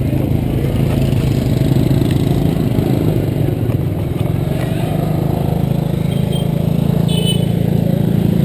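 Motorbike engine running at low road speed, a steady low drone that swells slightly, with a brief high-pitched sound about seven seconds in.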